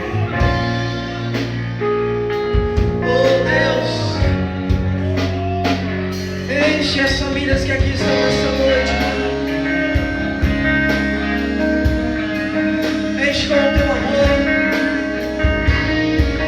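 Worship band playing: drums keeping a steady beat under guitar and sustained chords, with a voice singing over it.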